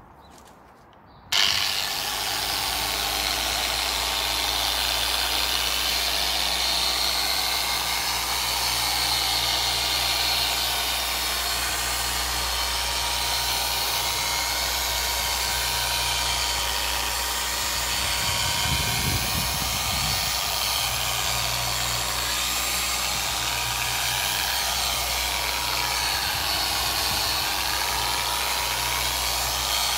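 Dual-action polisher with a soft black finishing pad switching on about a second in, then running steadily at low speed while it works glaze into a car's paintwork.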